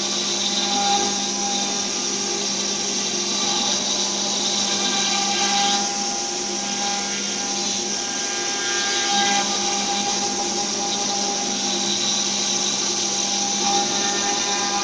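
CNC router spindle running at speed while its bit carves into a wooden board: a steady high whine over the cutting noise, with the upper tones shifting a few times as the cut moves.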